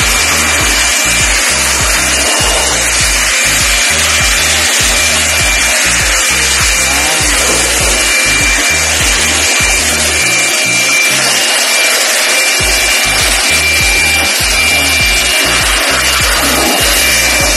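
Handheld electric blower running at full speed, a loud steady rush of air with a high motor whine, blowing dust out of the wiring and circuit boards of a chiller's electrical control panel.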